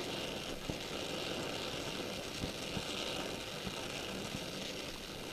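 Oxy-acetylene welding torch flame hissing steadily as it gas-welds a steel bracket with filler rod, with a few faint ticks.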